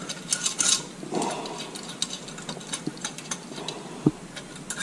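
Socket ratchet clicking in uneven bursts, with small metal handling clicks, as set screws are run in on a steel three-point quick hitch; one louder knock about four seconds in.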